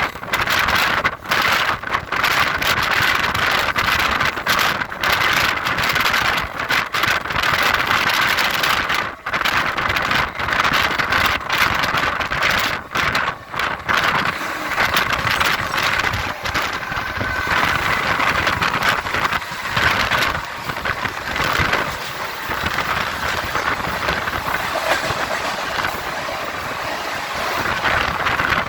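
A moving train running steadily, a dense continuous noise with frequent brief dips in level.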